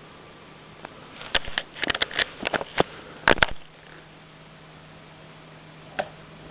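A standing fan being handled: a quick run of small clicks and knocks, then two sharper clicks about three seconds in and one more near the end, over a faint steady hum.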